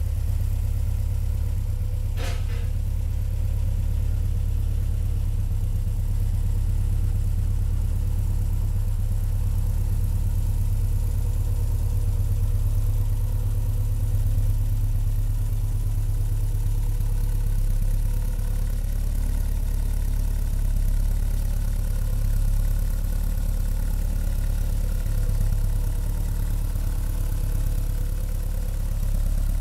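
Caterham Super Seven's engine idling steadily with a low, even rumble. There is a brief sharp noise about two seconds in.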